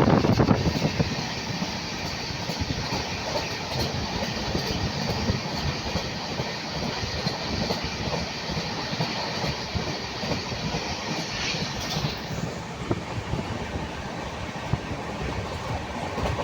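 Train running on the rails: a steady rumble with many short knocks from the wheels, louder in the first half-second.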